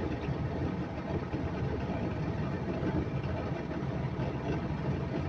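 Caterpillar 740 articulated dump truck's C15 diesel engine idling steadily, a low, even rumble heard from inside the cab.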